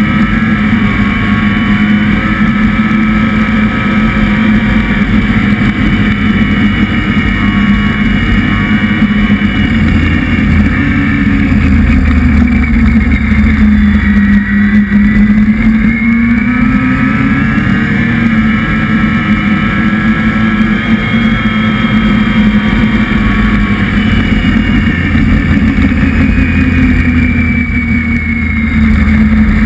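A motor vehicle's engine running steadily throughout, its pitch sagging and rising slowly as the speed changes, with a dip about halfway through and a rise near the end.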